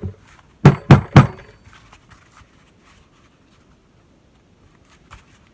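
Three sharp metallic clacks in quick succession, steel vise parts knocking together as the screw is fed through the vise, followed by a few faint ticks and one small click near the end.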